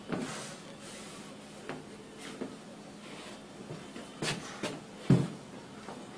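A handful of scattered knocks and thumps over low room noise, the loudest about five seconds in.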